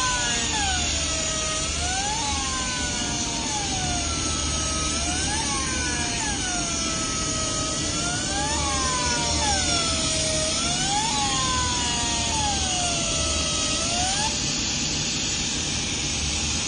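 Glass laser sandblasting machine running: a steady hiss over a low hum, with whining tones that dip and rise again in pitch every second or two as it works.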